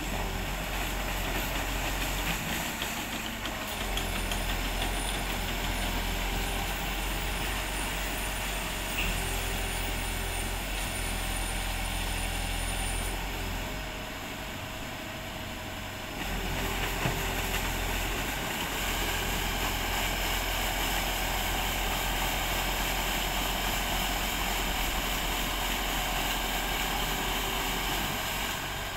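Aquatic weed-harvester boat running steadily, its engine humming low while its paddle wheels churn the water. The sound drops for a couple of seconds about halfway through, then picks back up.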